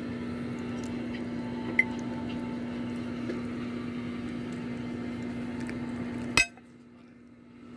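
Metal fork clinking and scraping lightly on a ceramic plate of spaghetti, over a steady low hum. A sharp click comes a little over six seconds in, after which the hum drops away and it goes much quieter.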